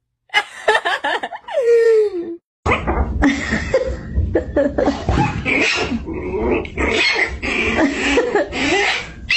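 A golden retriever makes a short vocal call that slides down in pitch. After a cut, a busy stretch of animal noises and voices over a low rumble.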